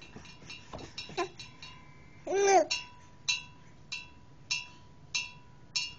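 A baby's short voiced squeal, rising then falling in pitch, about two seconds in. It is followed by a light bell-like ring that repeats about every two-thirds of a second.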